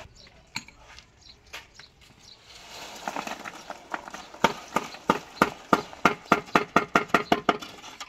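Wet concrete being tipped from a steel pan into a steel column formwork, followed about halfway through by a quick, even run of sharp ringing metal knocks on the form, about three to four a second for some three seconds.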